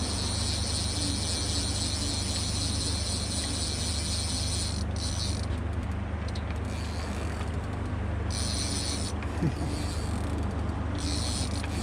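Fishing reel clicker ratcheting rapidly as a hooked fish runs and pulls line off the reel, stopping and starting several times, over a steady low hum.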